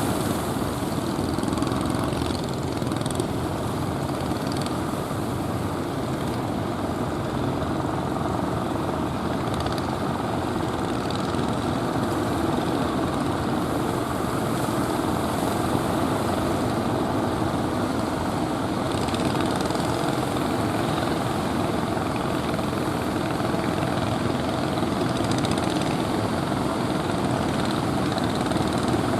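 Steady roar of ocean surf breaking and washing onshore, an unbroken even rush without distinct single crashes.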